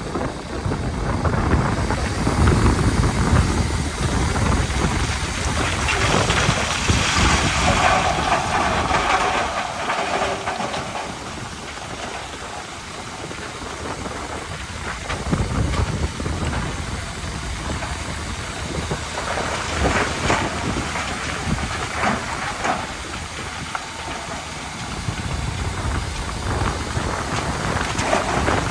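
Heavy earthmoving machinery at work: diesel engines running with a deep rumble and clattering. There is a hissing stretch about seven seconds in and scattered knocks later on.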